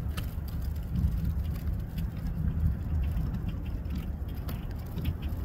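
Wind buffeting the microphone: a low, uneven rumble that swells and fades in gusts.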